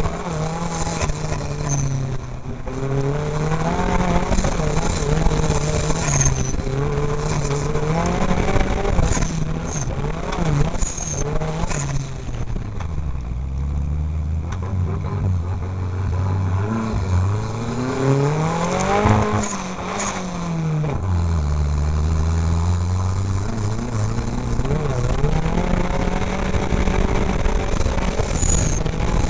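Offroad race car's engine heard from inside the cab, revving up and dropping back again and again through gear changes. Its revs sink low twice in the middle stretch before climbing back.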